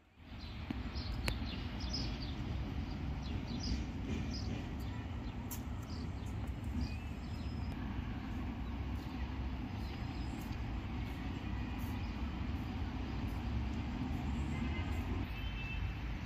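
Steady outdoor background noise, a low rumble, with a few short high chirps in the first half.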